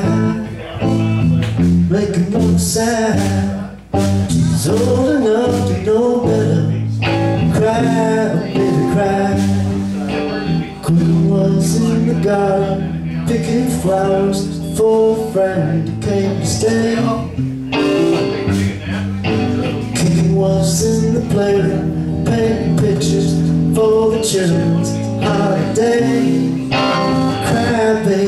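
A man singing and playing electric guitar live, a steady strummed accompaniment under the vocal line.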